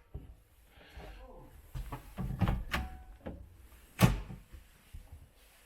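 Knocks and clatter of a boat's console storage hatch being handled, with one sharp thump about four seconds in as it is shut.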